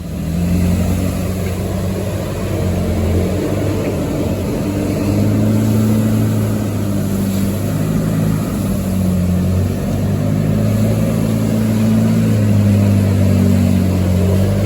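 Car engine and exhaust droning while the car is driven, with the engine note shifting a few times as the revs change.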